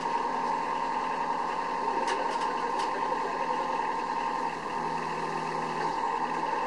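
Fruit-harvesting platform running steadily through the orchard row: an even machine hum with a high steady whine, and a few light clicks about two to three seconds in.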